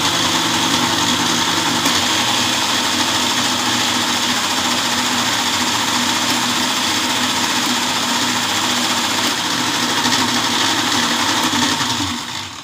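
Electric mixer grinder with a stainless-steel jar, running loud and steady at full speed as it grinds raw mango pulp with water to a thin chutney-like liquid. Near the end it is switched off and winds down.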